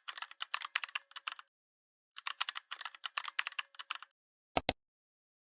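Computer keyboard typing: two runs of rapid key clicks, each about two seconds long, then two sharp clicks.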